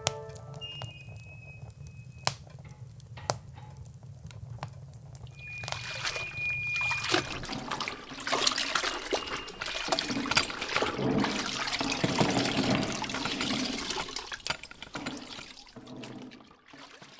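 Water dripping: a few separate drops at first, then a denser trickling and spattering that fades out near the end.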